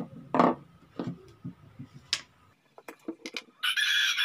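Small clicks and taps as the lid is worked off a small can of PVC cement and a PVC fitting is handled, then a rooster crows once, loudly, for about a second near the end.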